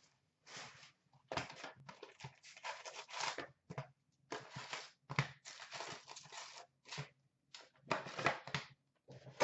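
A hockey card hobby box's wrapping and cardboard being torn open and its card packs pulled out: a run of short, irregular tearing and rustling rips.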